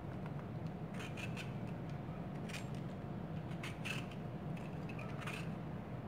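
Vegetable peeler scraping strips of peel off an orange in short, uneven strokes, over a steady low hum.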